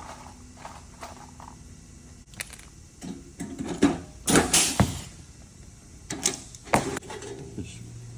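Sheet-metal HVAC fitting being handled and fastened: a series of sharp metallic clicks and knocks, the loudest coming about four to five seconds in.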